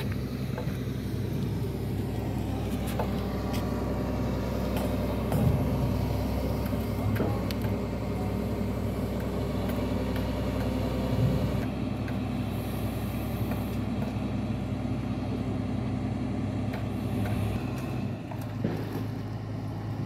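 Heavy machinery's diesel engine running steadily, a constant low drone with a few light knocks. Its sound changes about twelve seconds in.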